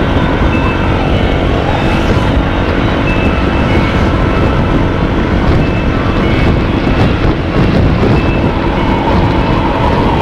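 Motorcycle running steadily at road speed, its engine drowned in wind rushing over the microphone.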